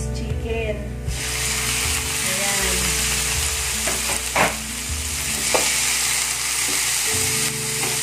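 Cubed raw chicken breast dropping into hot oil in a nonstick frying pan, starting to sizzle about a second in with a steady hiss. There are a few short knocks in the pan as it is stirred.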